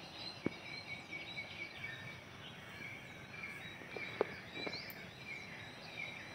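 Faint birds chirping over a low outdoor hiss, with a few light clicks.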